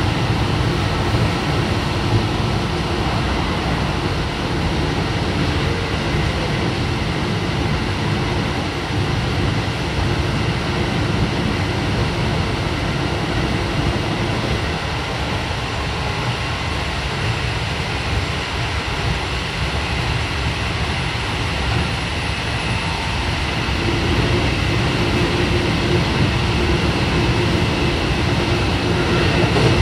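Running sound of a Keio 7000 series electric train with Hitachi IGBT inverter drive, heard inside the passenger car at speed: a steady rumble of wheels and running gear. A steady hum comes in and the noise grows a little louder about three quarters of the way through.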